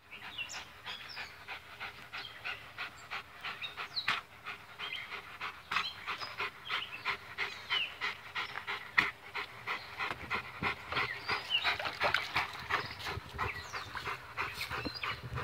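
A large black dog panting in a quick, steady rhythm, hot from a walk.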